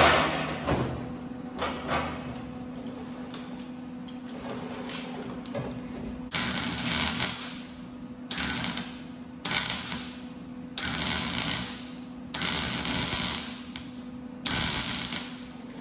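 MIG welder laying spot welds through two layers of sheet steel, joining an outer wheel well to the inner wheel tub: six separate bursts of crackling arc, each about a second or less, in the second half. A steady hum runs throughout, and there are a sharp knock at the start and a few lighter knocks early on.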